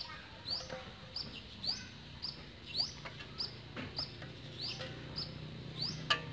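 Repeated short, high chirps, about two a second, over a faint low hum. A couple of sharp clicks come near the end.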